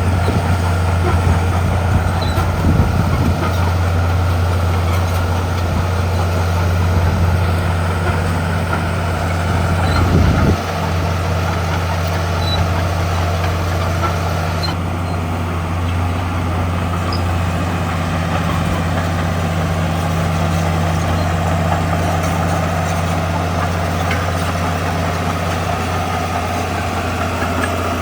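Heavy diesel engine of earthmoving machinery running steadily with a deep low hum. About ten seconds in, the note drops slightly and then holds.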